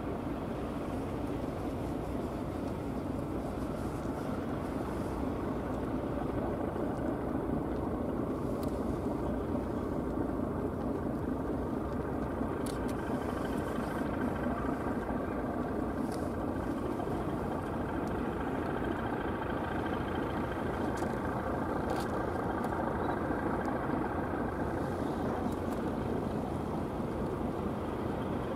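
Ship engines and machinery running with a steady rumble, with a few faint ticks on top.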